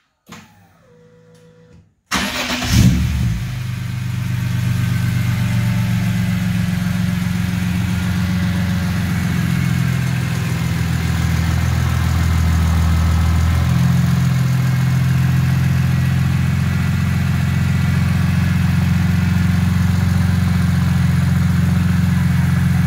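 BMW S54 3.2-litre inline-six, swapped into an E30, starting for the first time: it fires about two seconds in, its revs flare briefly, and it settles into a steady idle. The idle note shifts slightly about fourteen seconds in.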